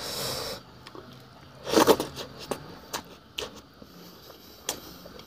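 Someone eating fish soup: short noisy slurps or sips, the loudest about two seconds in, with a few small clicks of chewing or utensils.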